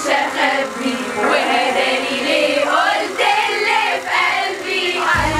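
Several women's voices singing together over music. A deep bass beat comes in suddenly near the end.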